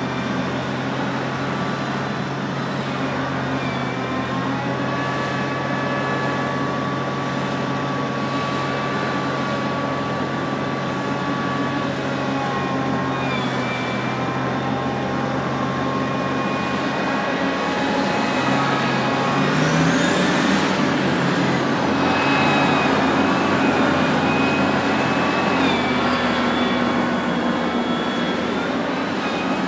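Liebherr R 984C hydraulic excavator's diesel engine and hydraulics running under load as it digs and swings a full bucket toward a dump truck. A steady low engine hum, with whining tones that shift in pitch; about two-thirds through, a tone rises and the machine gets louder for several seconds.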